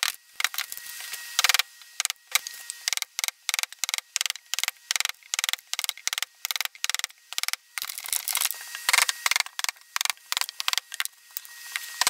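Wide steel chisel being struck as it chops out the inside of a log, a quick run of sharp knocks about two to three a second, with wood chips splitting away.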